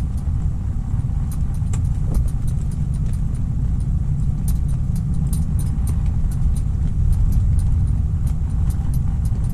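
Strong wind buffeting the microphone on open ice, a steady low rumble, with many small sharp clicks and ticks scattered through it.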